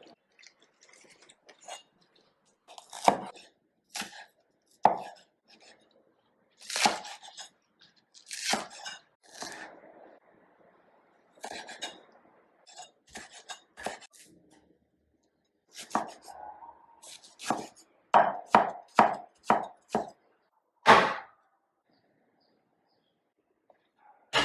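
Knife chopping on a cutting board in irregular single strokes, then a quicker run of several strokes in the last third.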